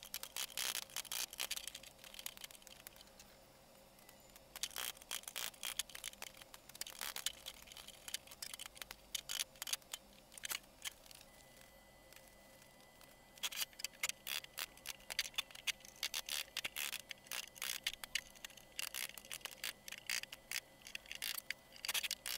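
Hand tools dismantling an old wooden trunk: quick clusters of sharp metal clicks and scrapes as nails are pried and pulled out of its trim with a hammer and pincers. There is a short pause about three seconds in and a longer one around ten to thirteen seconds.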